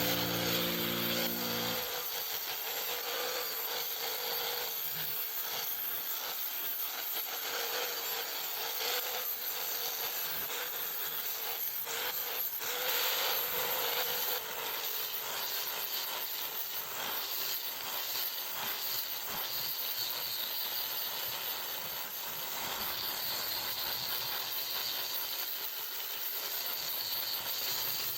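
Steady scratchy rubbing on wood, a tool worked against the surface of a log, with no engine tone in it. Background music fades out in the first couple of seconds.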